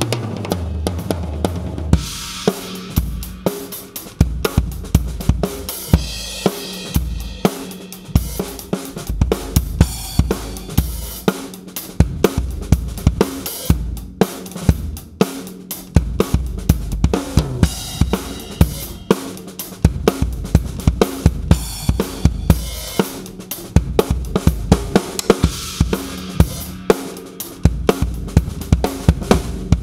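Acoustic drum kit with Sabian HHX cymbals playing a steady groove of kick, snare and hi-hat with cymbal crashes. It is picked up through a Yamaha EAD10 mic/trigger on its Compressor scene, which evens out the hits and gives a punchier, more powerful sound.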